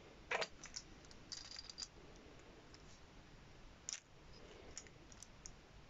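Scattered small clicks and taps from a toy monster truck and its plastic key launcher being handled: one sharp click about a third of a second in, a quick cluster of clicks around a second and a half, another click near four seconds, then a few faint ticks.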